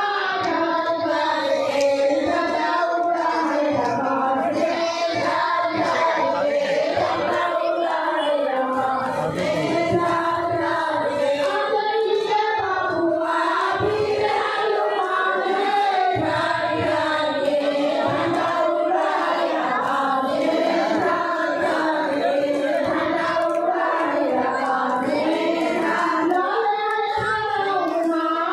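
A group of women singing a devotional song together in unison, with hand-clapping.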